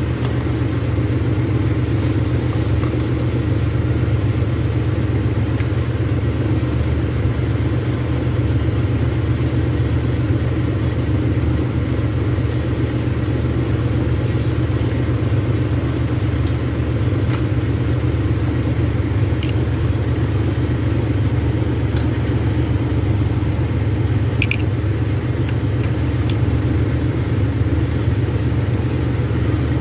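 A steady low mechanical drone from a running engine or motor, unchanging throughout, with a few faint light clicks.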